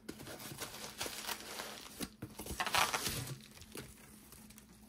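Cardboard box flaps being opened and handled, then a bubble-wrapped package lifted out with a burst of plastic crinkling about three seconds in; the handling goes quieter after that.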